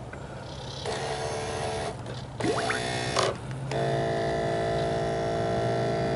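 Small electric ballast pump motor in an RC submarine's watertight cylinder, running steadily to flood the ballast tank. Its whine drops back for a moment early on, slides up in pitch about two and a half seconds in, then holds a louder, steady tone from about four seconds.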